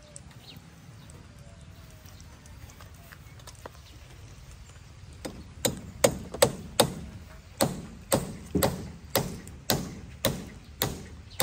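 Knife chopping on a cutting board: a steady run of a dozen or so sharp blows, about two a second, starting about five seconds in.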